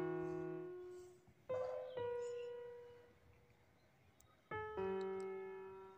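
Slow background piano music: a note or chord struck about every three seconds, each ringing and fading away.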